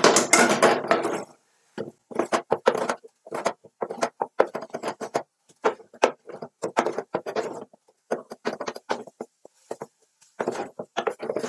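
Wooden spoon stirring and mashing thick cabbage fufu in an aluminium pot, knocking and scraping irregularly against the pot's sides and bottom as freshly added oatmeal is worked in to bind the dough.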